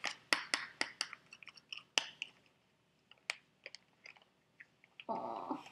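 Clear plastic bag crinkling and crackling as it is handled and filled with chocolate filling. The crackle is dense for the first two seconds or so, then thins to a few scattered ticks. A brief voiced sound comes near the end.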